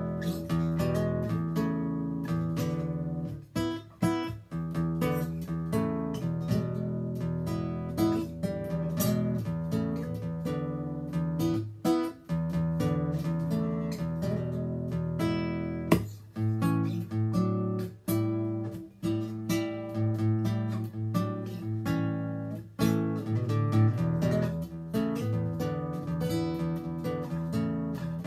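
A 2003 RainSong carbon-fibre nylon-string acoustic guitar fingerpicked, playing a continuous run of plucked notes and chords.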